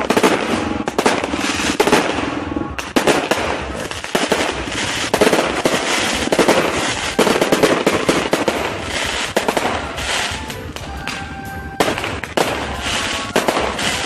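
Fireworks and firecrackers going off in a dense, rapid string of bangs and crackles, with hardly a break, like machine-gun fire.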